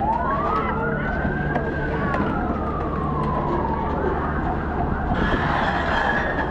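Police vehicle siren wailing: one slow rise in pitch over about a second and a half, then a slower fall, over a low rumble. A hiss joins about five seconds in.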